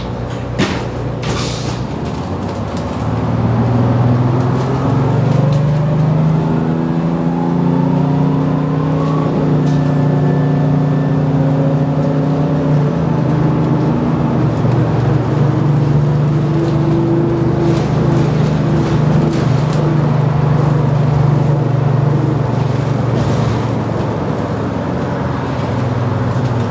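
Detroit Diesel 6V92TA two-stroke V6 diesel of an MCI Classic coach with an Allison transmission, heard from inside the bus: it revs up as the bus accelerates, its pitch climbing in steps through the gears, then runs steadily at cruise. A short hiss of air about a second in.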